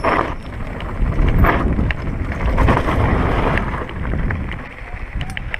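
Mountain bike descending a rocky trail: wind rushing over the microphone, tyres rolling over loose stones, and the bike rattling in sharp scattered clicks.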